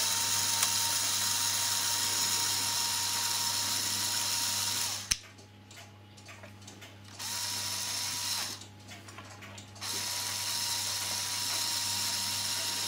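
Electric motor and plastic gear train of a Lego Technic 9397 logging truck whirring with a steady whine, driving its motorised outriggers. It stops with a click about five seconds in, runs again briefly around seven seconds, and starts up again near ten seconds.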